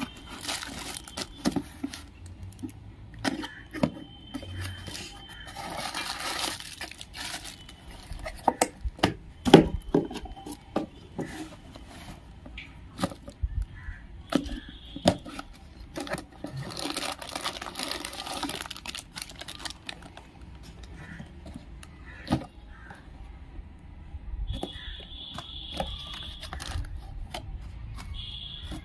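Box cutter slicing through tape and cardboard on small packaging boxes, the flaps being torn and pulled open, amid clicks and knocks from handling the boxes and crinkling plastic wrapping. A short high squeak sounds near the end.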